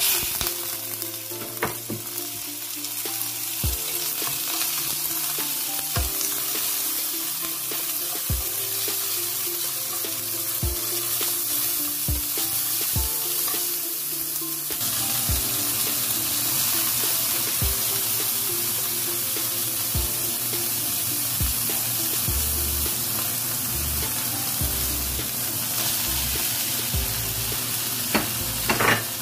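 Sliced pork and mushroom strips sizzling steadily in a hot nonstick wok as they are stir-fried, with a spatula knocking against the pan every second or two. Near the end there is a louder burst of sound as sliced onion goes in.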